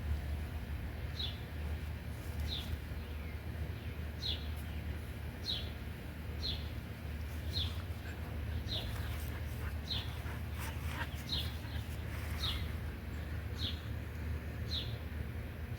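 A bird repeating one short, high, falling chirp roughly once a second, over a steady low rumble.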